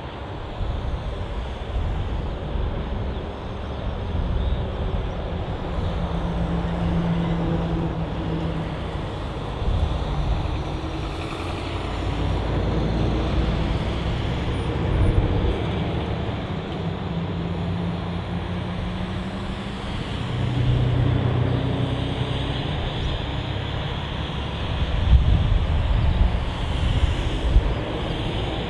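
Continuous low rumble of vehicle engines. Engine drones swell and fade several times, and the loudest pass comes near the end.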